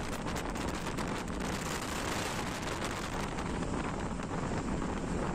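Wind rushing over a phone microphone mounted outside the cab of a moving Eicher truck, with the truck's road noise underneath. Steady, with many short gusty crackles.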